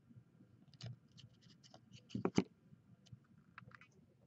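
Hockey trading cards being handled and flipped through: faint sliding and scratching with scattered soft clicks, and two louder taps a little past two seconds in.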